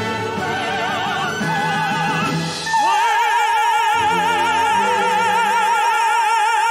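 Soprano and tenor singing an operatic duet with a symphony orchestra. Nearly three seconds in, the voices settle on one long high note with a wide vibrato and hold it, while the orchestra plays sustained chords underneath.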